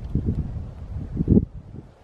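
Wind buffeting the microphone: an uneven, gusting low rumble that swells to its loudest about a second and a half in, then drops away.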